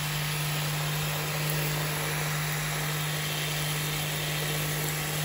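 Small electric plant mister running, a steady motor hum under the hiss of fine water spray as it mists a freshly sown seed tray.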